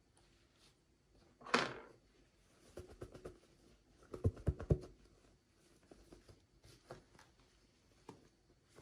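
Hands handling small toy packaging: a short rustle about a second and a half in, then quick runs of light taps and knocks, the loudest cluster a little past the middle, and scattered small clicks after.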